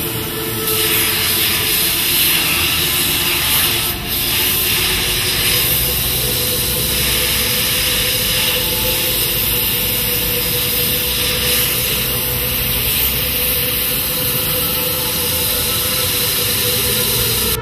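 Gas torch burning oxyhydrogen made from water, its flame hissing steadily as it heats a metal bar to red heat. A steady hum runs underneath.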